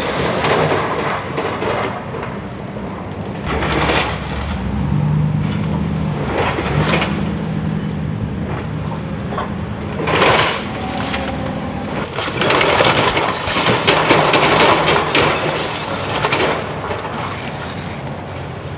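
Hydraulic excavator demolishing a wood-frame house: its diesel engine runs with a steady hum under the cracking and crunching of splintering timber. Several sharp cracks are followed by a longer stretch of breaking and falling debris in the last third.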